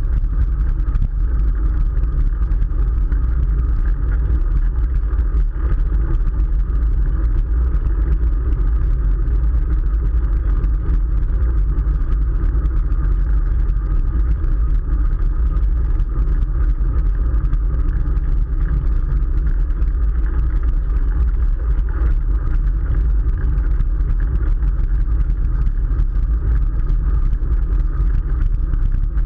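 Steady wind rumble on the microphone, with road and tyre noise, from a bicycle riding at speed.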